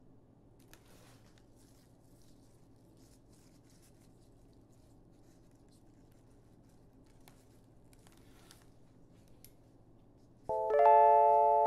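Faint rustling and a few soft clicks of flowers and stems being handled, over quiet room tone. About ten and a half seconds in, bell-like music with chiming notes starts and is the loudest sound.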